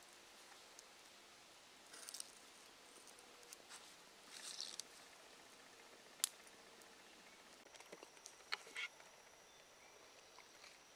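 Quiet woodland background with a few scattered faint clicks and crackles, one sharper click about six seconds in, and a faint high steady tone in the second half.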